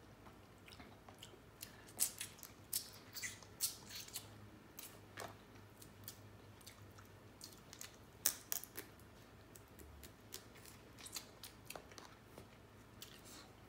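Blue crab shells being cracked and picked apart by hand while eating, with irregular sharp cracks and clicks and some chewing.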